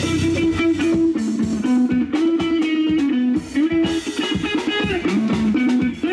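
Guitar-led music: a plucked guitar melody over a bass line that moves between a few held notes.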